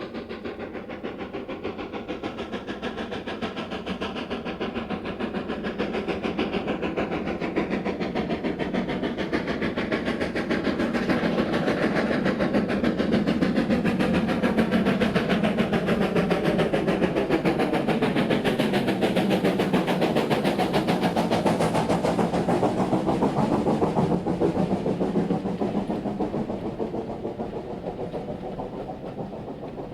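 BR Standard 4MT 4-6-0 steam locomotive 75014 working hard as it hauls a train past, growing louder over the first ten seconds or so, loudest through the middle, then fading as the train goes by.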